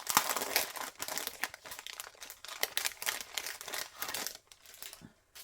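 Crinkling and rustling of packaging being handled and unwrapped: a dense run of crackles that dies away about four and a half seconds in.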